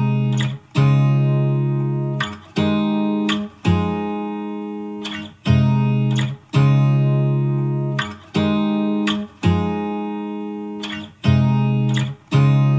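Music: guitar chords struck and left to ring and fade, with a new chord every second or two.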